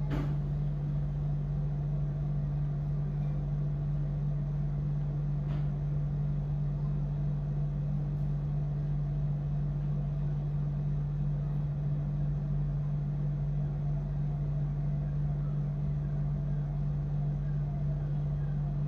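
Steady low hum, even and unbroken, with no other sound standing out.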